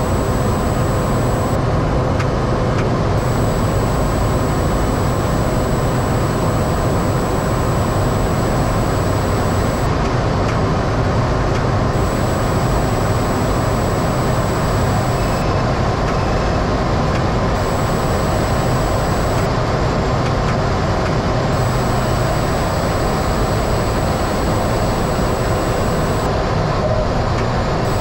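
Steady, loud drone of a Cessna 208 Caravan's PT6A turboprop engine and propeller, heard inside the cockpit.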